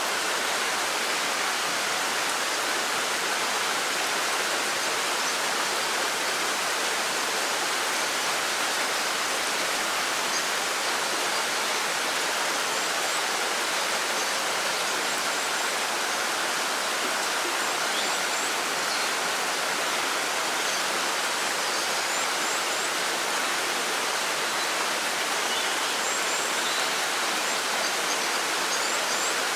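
Monsoon rain falling steadily: an even, unbroken hiss. A few faint high chirps sound over it in the second half.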